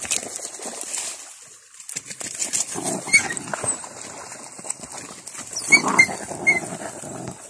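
Puppies yelping and squealing in short high cries, first about three seconds in and again in a cluster around six seconds, with splashing and scuffling as they come out of the water.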